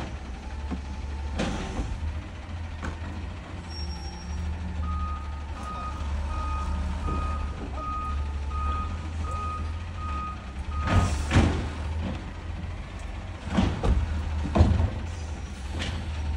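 Automated side-loader garbage truck running steadily while its hydraulic arm lifts and empties a green-waste cart. A warning beeper sounds about nine times at an even pace, then loud bangs and knocks as the cart is dumped into the hopper and set back down.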